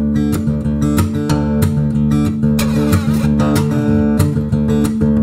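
Background music: strummed guitar playing a steady, even rhythm.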